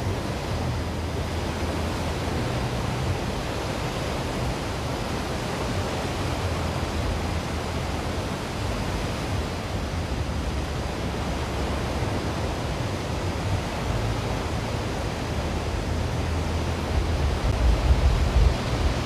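Steady wash of ocean surf, with wind rumbling on the microphone that grows stronger near the end.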